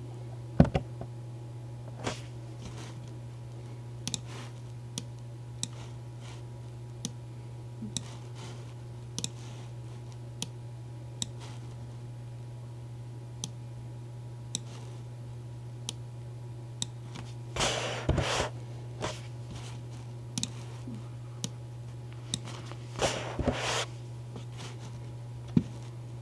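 Computer keyboard keys clicking now and then, with two short flurries of typing about 18 and 23 seconds in, over a steady low hum.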